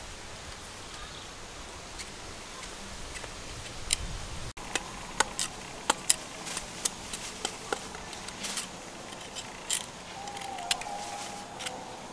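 Knife slicing a fresh root held in the hand: an irregular series of short, sharp cutting clicks, about two a second, starting about four and a half seconds in after a quieter stretch.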